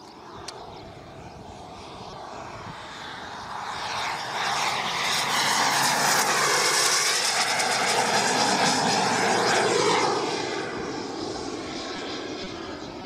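Radio-controlled scale model L-39 Albatros jet's turbine during a low flypast: a jet rush that builds over a few seconds and is loudest for about five seconds as it passes. It then drops off sharply and fades as the model flies away.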